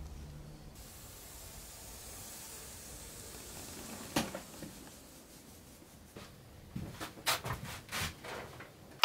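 A steady hiss, then one sharp knock about four seconds in. Near the end comes a quick run of knocks and clunks as a metal-framed filter panel is handled against a plywood cabinet.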